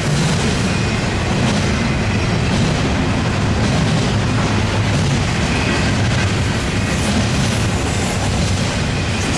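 Double-stack intermodal train's loaded container well cars rolling past: a steady rumble and clatter of steel wheels on rail.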